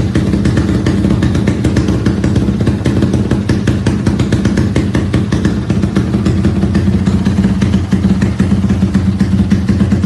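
Modified exhaust of a Yamaha Y15ZR-type 150 cc single-cylinder four-stroke motorcycle running steadily. Its firing pulses are rapid and even, and the pitch stays level.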